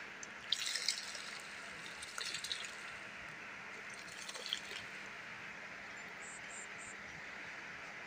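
Waste cattle-feed grain poured from a bowl into a small pond, pattering faintly on the water surface in three short spells, then only a faint steady hiss.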